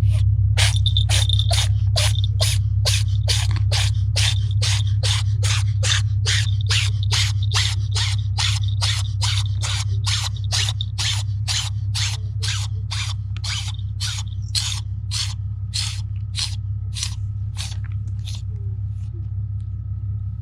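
A white cat sneezing over and over, about two sneezes a second, in a fit of some forty sneezes that slow and weaken toward the end. A steady low rumble runs underneath.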